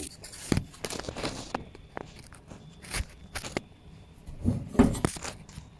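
Handling noise of a phone being shifted and propped up: scattered clicks, knocks and rustles, with the loudest knock and rustle a little before the end.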